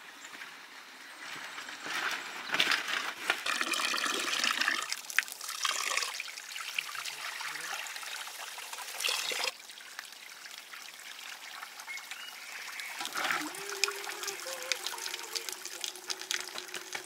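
Water being poured and splashed in uneven spells, with a steady low tone joining about 13 seconds in.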